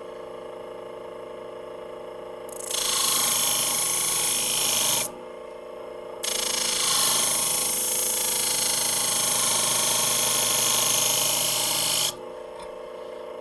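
Powered sharpener's motor running with a steady hum while a steel shear blade is ground on its spinning 600-grit abrasive plate in two passes: a loud grinding hiss for about two and a half seconds, a short break, then about six seconds more. The passes grind the new edge out to the blade's tip.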